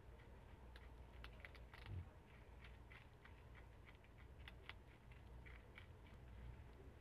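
Prairie dog gnawing a hard, crunchy stick-shaped animal treat: faint, irregular crunching clicks, several a second, over a low hum, with a soft low thump about two seconds in.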